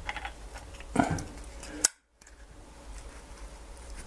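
Locking pliers gripping and twisting the seized output shaft of a Subaru Outback rear wiper drive: a short effortful voice sound about a second in, then a sharp click, with the shaft stuck fast. A brief dropout follows.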